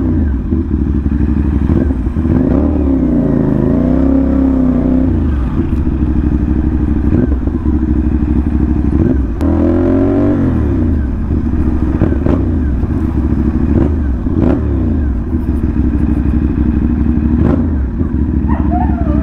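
CFMoto 450NK parallel-twin motorcycle engine running under way through a short SC Project-replica exhaust, the exhaust note loud and hard; twice the revs rise and fall again.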